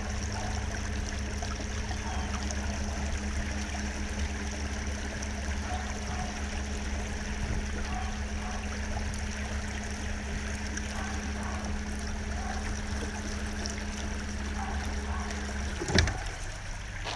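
A small boat's motor running steadily at low speed with a low hum, over a wash of water noise. Near the end comes a single loud knock, and the hum cuts off right after it.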